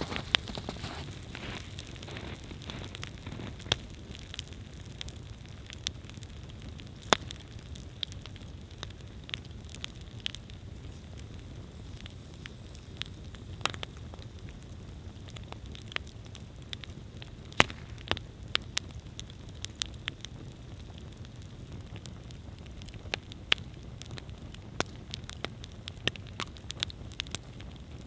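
Wood campfire burning: a steady low rush of the fire with sharp, irregular crackles and pops from the burning wood.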